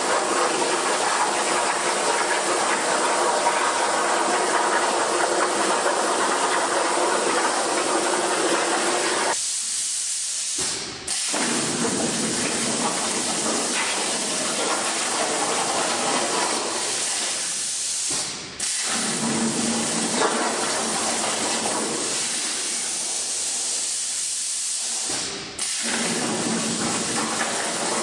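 CNC plasma torch cutting: a loud, steady hiss of the arc and air that stops briefly three times and restarts abruptly each time, as the torch moves between cuts.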